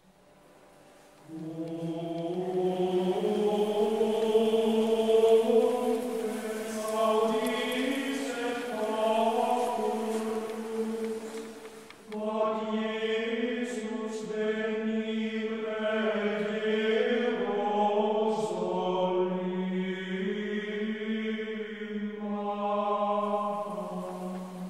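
A choir sings a slow chant in long, held notes, in several voice parts. The singing begins about a second in, fades briefly, and starts again abruptly about halfway through.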